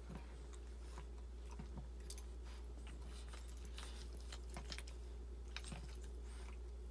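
Boston Terrier mother chewing and licking at her newborn puppy, a string of small irregular wet clicks and smacks: she is chewing through the umbilical cord and cleaning the pup.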